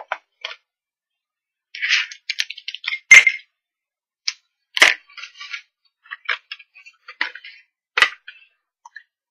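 Close handling of paper, card and a spool card of linen thread: light rustles broken by several sharp clicks and snaps, the loudest about three seconds in, as scissors cut a length of the thread.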